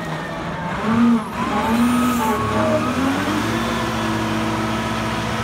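Diesel engine of a 1985 Kalmar LMV DB13,6-600 forklift truck running while it is driven. Its pitch dips and rises several times in the first three seconds, loudest about a second in, then holds steady.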